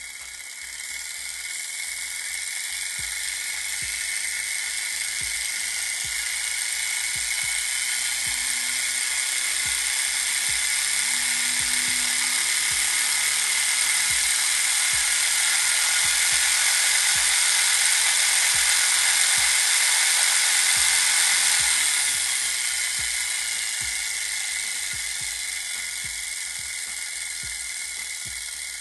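The small brushed DC motor and crank-and-crosshead drive of a Black & Decker Firestorm reciprocating saw, run bare on a bench DC supply, makes a steady high-pitched whine. It grows louder as the motor is sped up, peaks about twenty seconds in, then eases off a little near the end.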